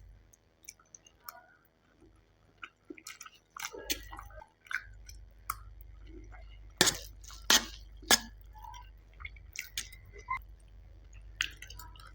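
Close-miked chewing and wet mouth sounds of a person eating Maggi instant noodles, with scattered smacks and clicks; three loud sharp smacks come about half a second apart near the middle.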